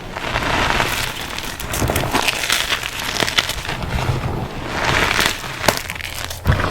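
Reformed gym chalk and cornstarch crunchies being crushed, with dense crunching and crackling full of sharp snaps, swelling in waves every couple of seconds as the blocks are pressed and break.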